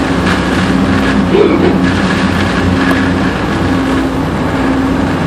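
Steady low drone of a cargo ship's engine and machinery under a loud, even rush of storm wind.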